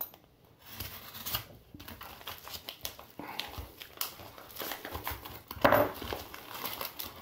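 Padded paper mailer being slit with a scalpel and torn open by hand: crinkling and tearing paper, with a louder rustle about six seconds in.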